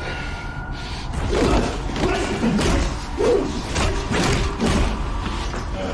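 Hand-to-hand fight sound effects: a rapid series of punches and body blows landing with thuds and slams, starting about a second in, mixed with short grunts of effort.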